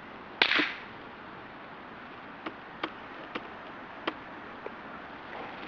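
One sharp, loud crack of a spark as the charged flash capacitor of a homemade disposable-camera taser discharges across its contacts, about half a second in. A few faint clicks follow.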